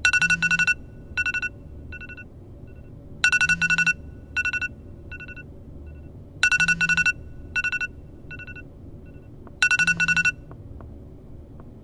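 iPhone alarm ringing: rounds of rapid high beeps, each followed by fading repeats, coming about every three seconds with a short low buzz at the start of each round. It cuts off about ten seconds in as it is switched off.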